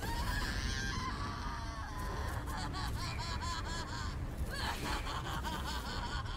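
Fight-animation sound effects: a steady low rumble of a fiery blast with high, wavering screams over it, coming in quick repeated rises and falls in the middle and again near the end.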